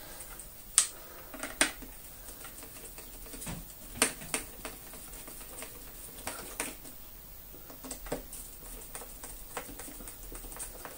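Irregular light clicks and taps of a screwdriver and screws against the plastic switch housing of a Dyson DC24 vacuum cleaner as its screws are refitted and driven in by hand.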